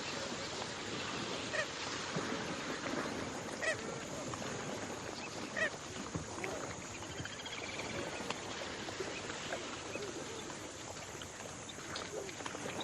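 Pelicans calling: a few short, separate calls and a quick run of chirps over a steady background hiss.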